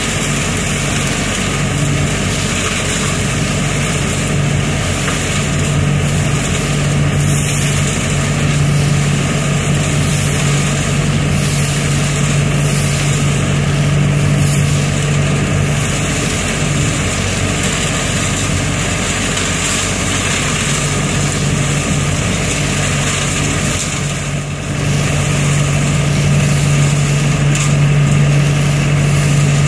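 ODB 650 trailer-mounted leaf vacuum running steadily under load, its engine and fan droning loudly with the rush of air and leaves being sucked up the intake hose. The sound dips briefly about 25 seconds in.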